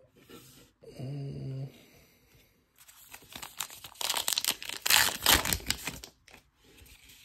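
A trading-card pack wrapper being torn open and crinkled in the hands, a dense crackling that is loudest midway, as the cards are pulled out.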